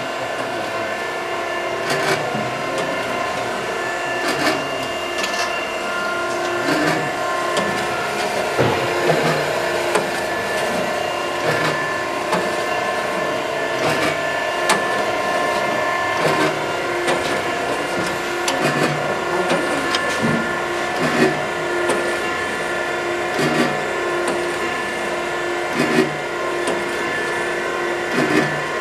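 Okamoto ACC124N hydraulic surface grinder running, a steady hum with several held tones. A knock comes about every two and a half seconds, as the hydraulic table reverses at each end of its stroke.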